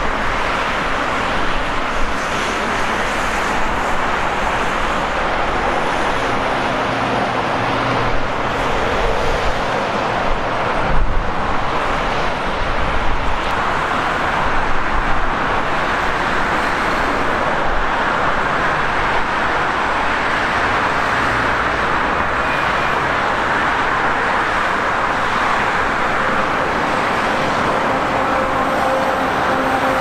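Continuous highway traffic noise, a steady rush of cars and trucks passing on a multi-lane motorway.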